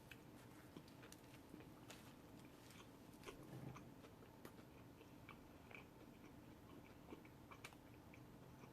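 Faint chewing of a sandwich, with soft mouth clicks and small crunches.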